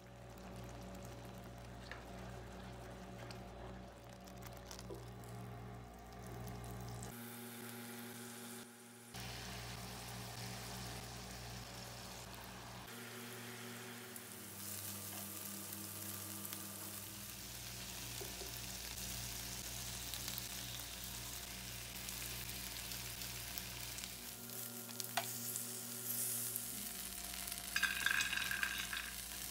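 Thin strips of meat sizzling in a grill pan and being turned with metal tongs. Before that, a spoon stirs tomato sauce in a pan. Near the end there is a louder rattle as toasted bread cubes are tipped into a serving dish.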